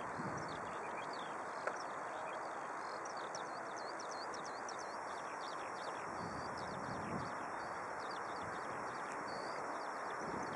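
Steady distant jet rumble from a Boeing 737 rolling out on the runway, with small birds chirping rapidly and repeatedly over it. A short click about two seconds in.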